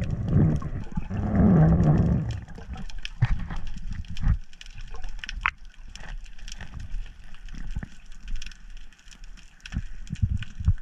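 Underwater sound picked up through a camera housing: a burst of rushing, gurgling water noise in the first two seconds, then a quieter hiss dotted with scattered clicks and crackles.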